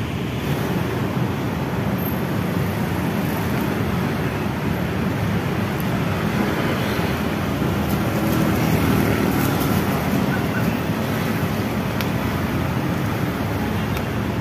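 Steady road traffic noise: a continuous hum of passing cars at a busy intersection.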